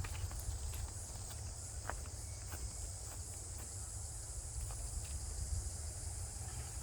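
Steady high-pitched chirring of insects, with a low rumble underneath and a few faint knocks.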